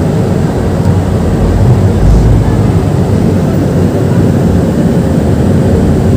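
Steady low rumble of the Penang Hill Railway funicular car running on its track as it sets off up the hill, heard from inside the car.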